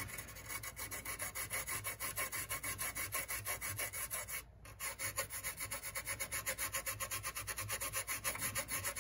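Fiberglass scratch pen scrubbing the solder pads of a printed circuit board in rapid back-and-forth strokes, several a second, with a short break about halfway through. The pads are being cleaned after the chip has been desoldered.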